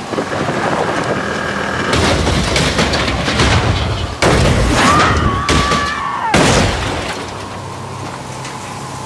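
Quad bike overturning in a crash: the noise builds, then a sudden loud crash about four seconds in with heavy impacts and breaking. A high wail rises, holds and falls away, and it all settles to a steady low noise.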